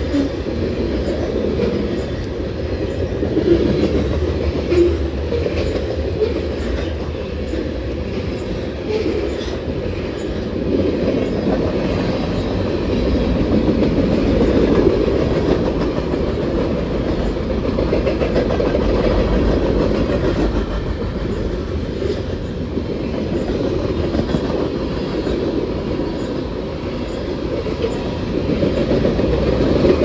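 Freight cars of a mixed manifest train rolling past at close range: a steady rumble of steel wheels on rail, with a light clickety-clack over the rail joints.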